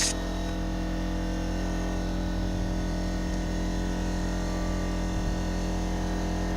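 A motor running with a steady, even hum, switched on just before.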